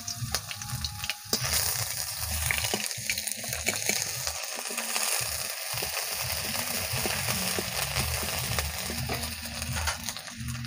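Garlic and dried red chillies sizzling steadily in hot oil in a metal kadai, with a steel spatula stirring and scraping against the pan in scattered clicks.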